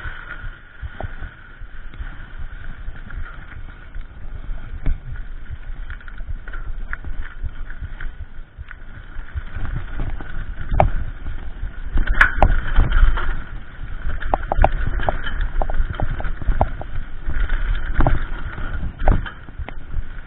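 Mountain bike rolling fast down a dirt singletrack: wind rumble over the action cam with rattling and knocks as the bike jolts over bumps, with the hardest knocks from about ten seconds in.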